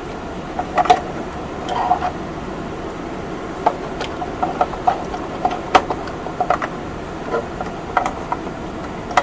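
Scattered light clicks and short clinks from a metal bracket being fitted and handled inside a computer case, over a steady noisy hum.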